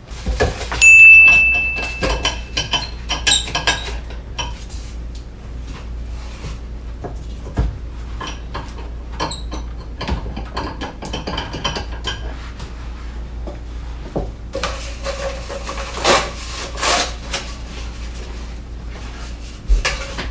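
Kitchen crockery and cutlery clinking and knocking, scattered light knocks over much of the time. About a second in there is a loud, steady high tone lasting about a second.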